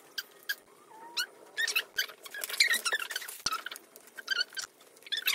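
Wooden kit pieces squeaking as they are pressed and slotted together by hand, a string of short high squeaks, with a light knock about three and a half seconds in.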